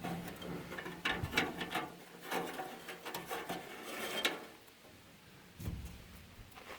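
Hands working baler twine through the hooks and holes of a small square baler's metal twine box: scattered light clicks, knocks and rubbing for about four seconds, then quieter, with a dull thump late on.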